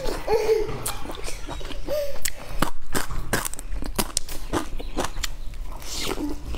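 Close-up eating sounds: a person biting into and chewing a pan-fried stuffed flatbread, a run of short crackly crunches and mouth clicks.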